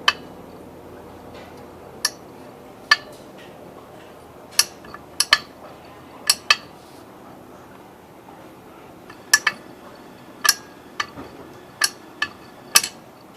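Metal tools and copper refrigeration tubing clinking and tapping as they are handled, about fifteen sharp irregular clinks.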